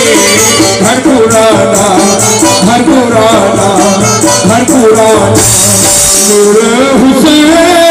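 Live qawwali: a lead voice sings a melodic line over harmonium, with a steady tabla beat. A bright rattling hiss swells for about a second, some five and a half seconds in.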